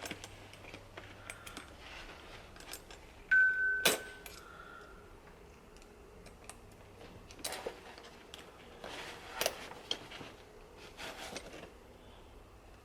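Small metal hardware on a tree-climbing saddle clicking and clinking as it is handled while screws are lined up and started on a spring-loaded clamp, with one short high tone and a sharp click about three to four seconds in.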